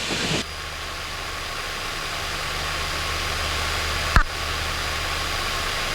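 Beechcraft Travel Air's twin piston engines running steadily, heard in the cabin as a low hum under a constant hiss, with a single sharp click about four seconds in.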